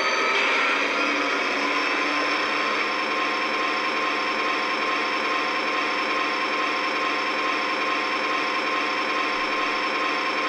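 Model diesel locomotive's RailSounds 4.0 sound board playing a simulated diesel engine running steadily through the locomotive's small speaker. The engine note shifts in the first couple of seconds, then holds steady.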